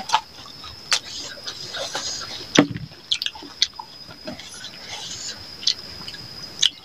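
Close-miked eating sounds: wet lip smacks and chewing as rice and chicken curry are eaten by hand, with one louder smack about two and a half seconds in. A steady high-pitched tone runs underneath.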